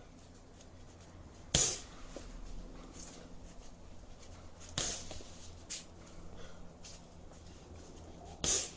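Kicks smacking a double-end ball: three sharp hits about three seconds apart, each with a short hissy tail, and a few lighter taps between them.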